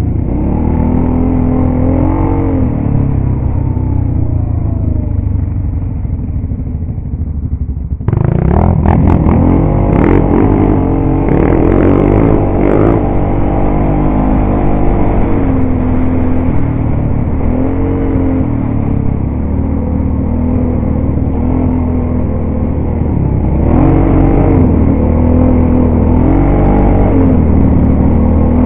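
ATV engine running on a dirt trail, its revs rising and falling again and again with the throttle. About eight seconds in, the sound suddenly gets louder and brighter.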